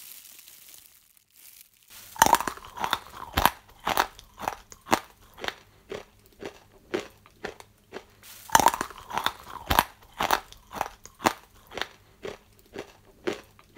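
Crisp fried cat's-ear (maoerduo) pastries being bitten and chewed, in two runs: a loud first crunch about two seconds in, then regular fading crunches about two a second, and the same again about halfway through.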